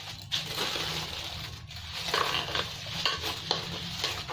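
Aluminium foil crinkling and rustling as hands press and smooth it around the rim of a cooking pot, in many quick crackles.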